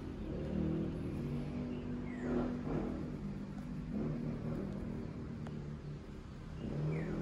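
Tabby cat purring while being scratched under the chin: a steady low purr that comes in segments about a second long. A brief falling-pitch sound comes about two seconds in.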